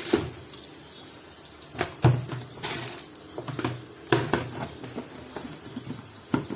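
Water splashing in irregular spurts, with several sharp knocks and clatters, the loudest about two and four seconds in, as a cup of laundry detergent is handled and filled.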